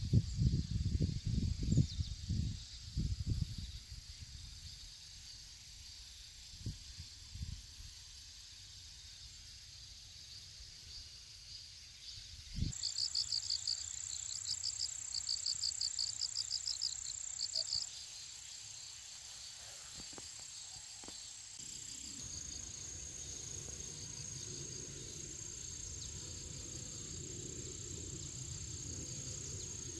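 Low rumbling buffets of wind noise for the first few seconds, then autumn field insects (crickets): a run of rapid, evenly pulsed high chirps for about five seconds midway, and a steady high-pitched trill through the rest.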